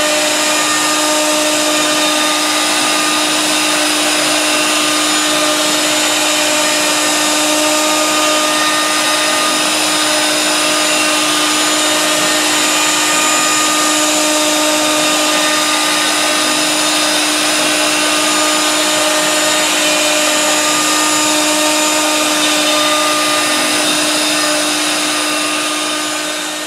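CNC router spindle (a handheld-type router) running at high speed as a half-inch two-flute end mill cuts a pocket in a wooden sign blank. It makes a steady high whine with a cutting hiss and fades out near the end.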